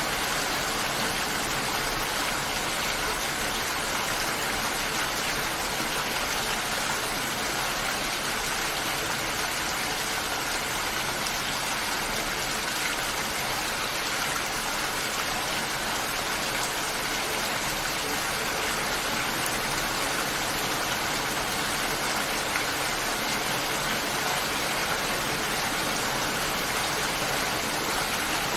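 Steady, even rain falling, with no breaks or separate events.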